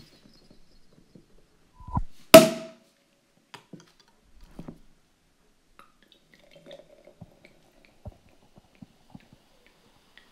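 A sparkling wine bottle's cork pops out loudly once, about two and a half seconds in, with a short ring. After it come only faint scattered ticks as the foam sprays from the bottle.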